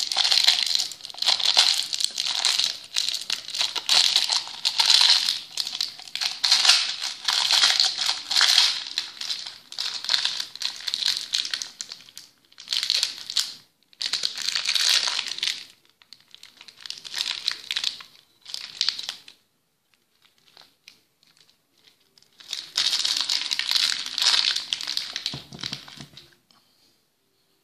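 Clear plastic candy bag crinkling as it is handled, in bursts, with a pause of a couple of seconds about two-thirds of the way through.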